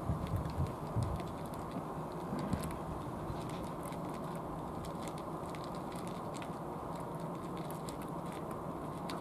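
Cats crunching dry kibble from plastic trays: many small, irregular crisp clicks of chewing over a steady low background rumble, with a few low thumps in the first second.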